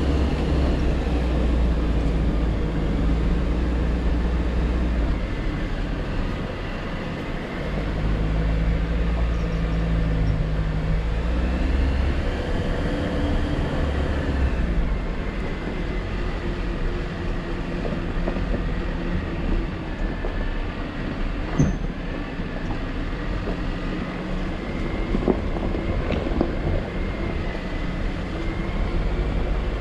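Jeep Wrangler JL's engine running at low speed as it crawls along a rough dirt trail, with a steady low rumble and its pitch rising and falling a little as the throttle changes. A few sharp knocks from the suspension and body over the bumps come in the second half.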